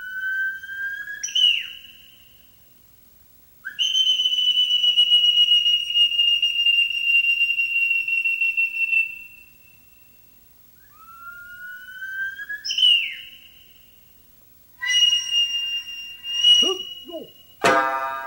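Japanese bamboo flute playing the opening of the dance music: separate notes that slide upward and leap to a shrill high note, and one long held note, with short pauses between phrases. Near the end, plucked shamisen strings come in with sharp, twanging notes.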